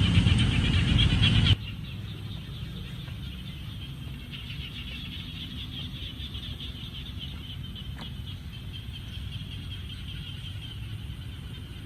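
Chorus of frogs calling from a rain-flooded pond, a fast pulsing high chirring that goes on steadily, over a low steady rumble. A louder rush of noise cuts off suddenly about one and a half seconds in.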